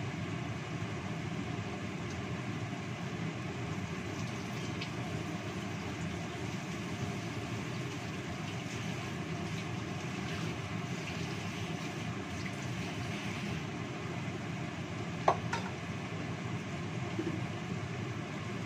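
Steady hiss of a gas burner under a wok of fish in spice sauce simmering and steaming, with faint scattered crackles. A single sharp click about fifteen seconds in is the loudest sound.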